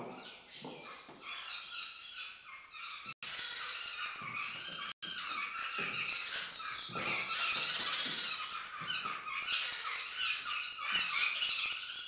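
A crowd of small aviary birds chirping and twittering together, many short high calls overlapping without a break, except for two very brief dropouts about three and five seconds in.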